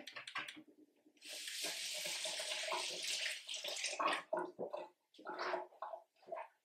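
Kitchen tap running at the sink for about three seconds, then shut off. Several clinks and knocks of kitchenware being handled come before and after it.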